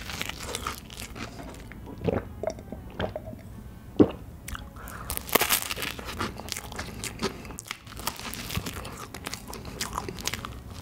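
Close-miked crunching bites into a crisp waffle topped with whipped cream, then chewing, with many sharp crackles; the loudest crunch comes about four seconds in.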